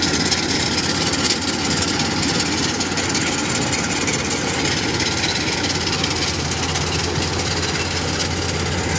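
Diesel engines of Kubota rice combine harvesters running steadily as they drive through a wet rice paddy.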